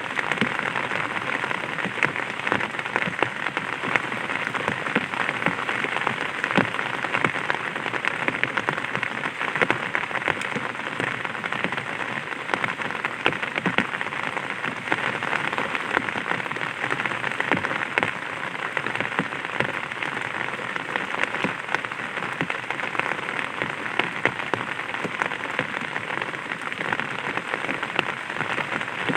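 Light rain falling on an umbrella: a steady, dense spread of small drop ticks that holds at an even level throughout.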